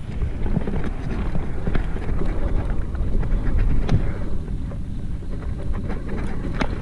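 Wind buffeting the microphone of a camera riding on a mountain bike as it rolls downhill over grass and dirt, with frequent small rattles and knocks from the bike over bumps.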